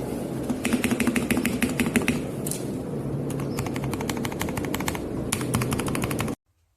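Rapid typing on a mechanical keyboard: dense, irregular key clicks over a steady low hum, cutting off suddenly near the end.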